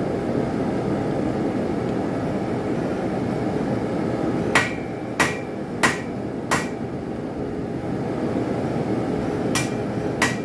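Hand hammer striking a hot railroad spike on an anvil, forging the knife's tip: four ringing blows about half a second apart from about halfway in, then two more near the end, over a steady rushing background noise.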